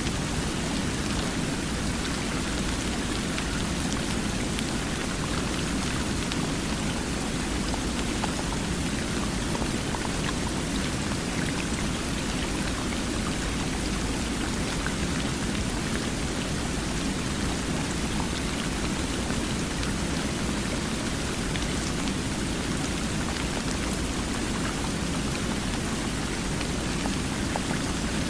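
Flowing water: a steady, even rushing with many fine splashes and drips, unchanging throughout.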